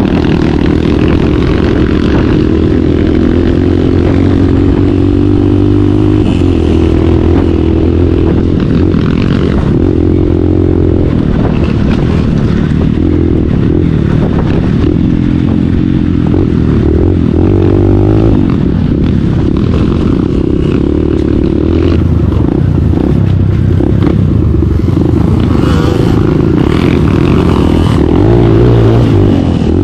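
Dirt bike engine with an open exhaust pipe running loud under constant throttle changes, its pitch shifting up and down as the rider works the gears over a rocky trail, with the bike rattling over the stones. The revs climb near the end.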